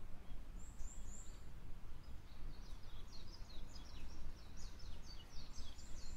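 A small songbird chirping: three short, very high chirps about half a second in, then a quick run of falling chirps from about two seconds on. Underneath is a steady low rumble of outdoor background noise.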